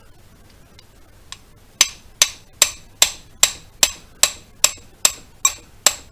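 Steady, evenly spaced hammer taps, about two and a half a second, starting about two seconds in after a couple of faint ones, each sharp with a brief ring. They drive the gudgeon pin through a piston on the VW CT air-cooled engine until its circlip groove shows.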